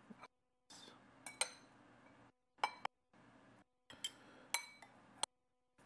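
Spoon and chopsticks clinking against a small porcelain rice bowl while food is served into it: several sharp clinks, each ringing briefly.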